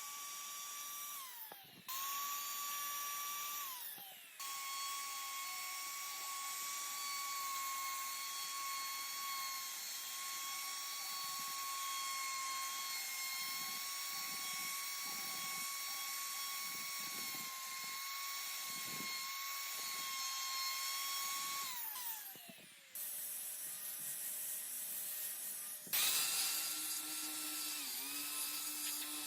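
High-speed rotary carving tool running with a steady high whine while carving wood, winding down in pitch each time it is switched off, with several abrupt cuts between runs. In the last few seconds a lower-pitched tool whine takes over.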